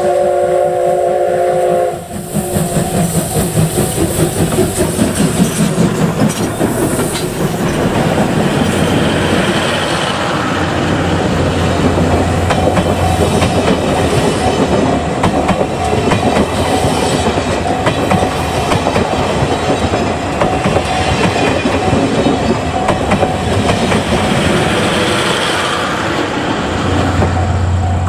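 C57 180 steam locomotive passing close by: its steam whistle sounds a steady chord that cuts off about two seconds in, followed by pulsing exhaust beats. Then the train's coaches roll past, their wheels clattering over the rail joints.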